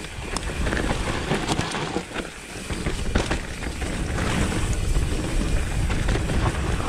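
Wind buffeting a helmet-mounted action camera's microphone and tyres running over a dirt trail as a Nukeproof Reactor mountain bike descends at speed, with short knocks and rattles from the bike over rough, rooty ground.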